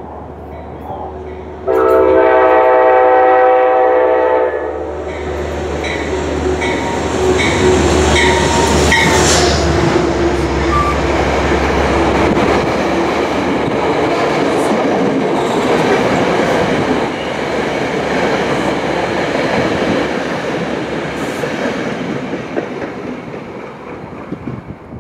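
A Metro-North commuter train blows a loud multi-note horn for about three seconds as it approaches. It then passes close by with a steady rumble and clatter of wheels on rail and a low locomotive hum, easing off near the end.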